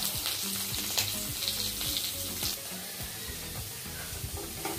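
Sliced onions, green chillies and freshly added curry leaves sizzling and crackling in hot oil in a kadai. The crackles are dense at first and thin out after about halfway, leaving a softer steady sizzle.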